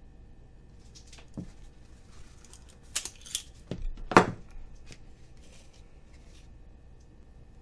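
Tabletop handling sounds from a knife and a hot pepper pod: a few sharp clicks and knocks, the loudest about four seconds in, then some brief rustling.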